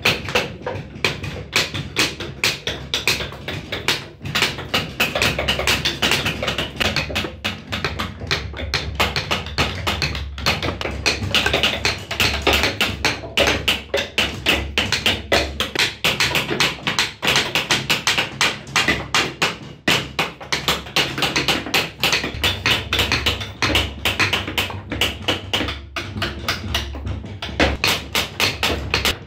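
Steel carving chisel struck with a wooden mallet, cutting a decorative border into a hardwood plank: a fast, continuous run of sharp wooden taps, several a second.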